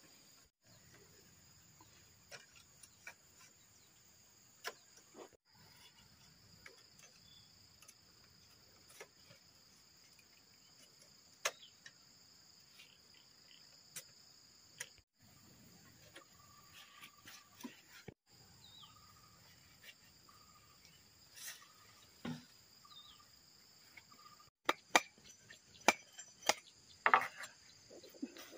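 Steady high-pitched drone of insects, with scattered light clicks and knocks as split bamboo slats are worked into a woven fence panel. The knocks grow sharper and closer together near the end, and the insect drone breaks off briefly a few times.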